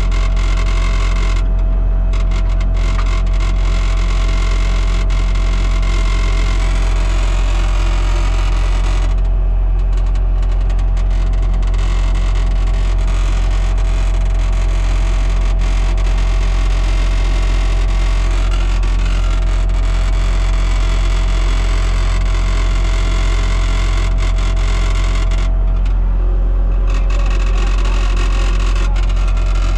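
Skid-steer loader's diesel engine running steadily, heard from inside the operator's cab, with the higher machinery noise rising and falling a few times as the machine works.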